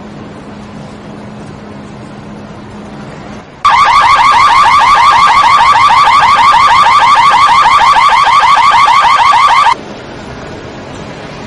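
Car alarm siren going off: a fast run of rising whoops, several a second. It starts suddenly about three and a half seconds in and cuts off about six seconds later.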